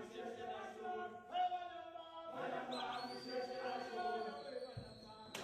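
Men of a Zulu ingoma dance troupe chanting together in long held notes, pausing briefly twice. A high steady tone joins about halfway through, and a sharp thud comes at the very end.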